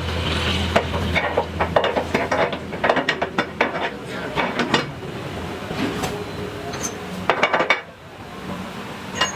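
Rapid, irregular clinking and clattering of hard objects knocking together, with a low steady hum in the first second or two.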